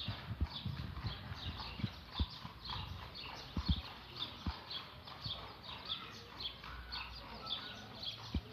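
A cat eating from a bowl: irregular soft clicks and smacks of chewing, with short high chirps repeating in the background.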